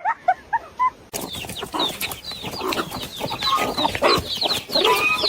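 A flock of chickens clucking and calling, many short overlapping calls in quick succession, starting suddenly about a second in.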